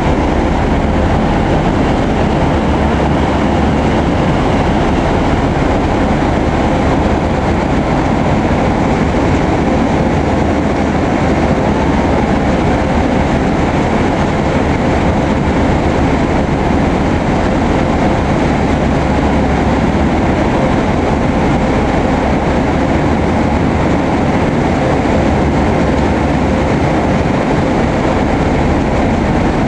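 Wave-piercing catamaran fast ferry's diesel engines and waterjets running at speed: a loud, steady rumble with a thin constant hum through it, mixed with the rush of the churning wake.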